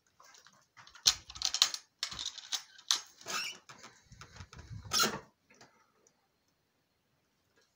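Clatter of a homemade wooden-framed mesh fish-drying cabinet being handled while its hinged glass lid is lifted open: a run of small knocks, clicks and rubbing that stops about five seconds in.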